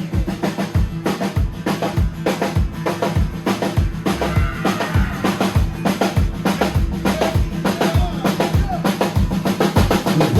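Live band playing a song's instrumental intro: a drum kit keeping a steady beat of kick and snare hits over a sustained bass line.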